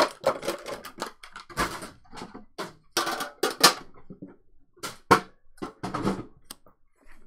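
Plastic packaging crinkling and rustling in quick irregular crackles as it is handled, dying away about a second before the end.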